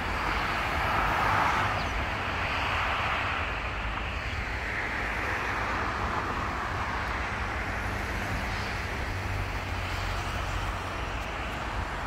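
Road traffic passing on a multi-lane road: a steady hiss of tyres and engines that swells and fades as cars go by, loudest about a second in.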